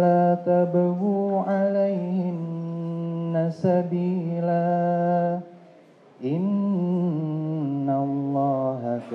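A man's voice chanting a Quran recitation in Arabic through a microphone. He holds long notes that glide slowly in pitch and stops for a breath about six seconds in before starting the next phrase.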